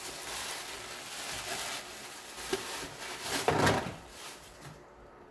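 Gift packaging rustling and crinkling as it is unpacked by hand, with a louder rustle about three and a half seconds in, then quieter near the end.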